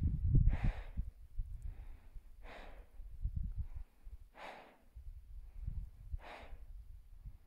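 A climber's heavy, laboured breathing during the K2 summit push, one loud breath about every two seconds. It is the sound of exertion at extreme altitude, over a low rumble on the microphone.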